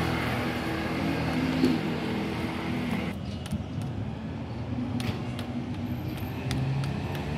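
A motor vehicle's engine running, loudest through about the first three seconds and then quieter, with a few light clicks in the second half.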